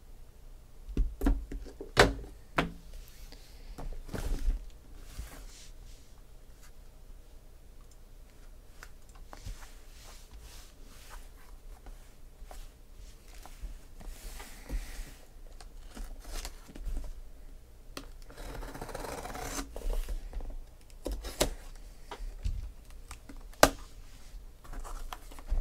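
Taped cardboard shipping case handled and opened by hand: a few sharp knocks in the first seconds as the box is set down and turned, then scattered scrapes and a couple of longer rasps as packing tape is slit and pulled off and the cardboard flaps are opened.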